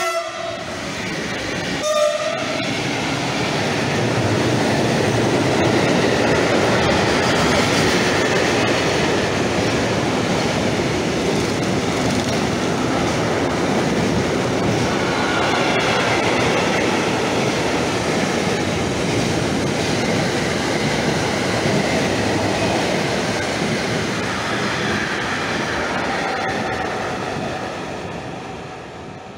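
A Fret SNCF electric locomotive gives two short horn blasts, one right at the start and one about two seconds in. Then its long freight train of wagons carrying semi-trailers passes close by, the running noise of wheels on rails steady and loud, fading near the end.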